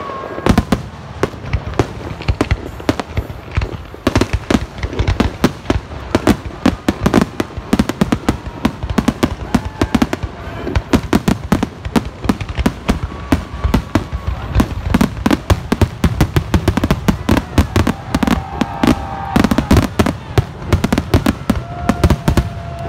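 Fireworks display: a dense, continuous barrage of bangs and crackles, many shells bursting every second.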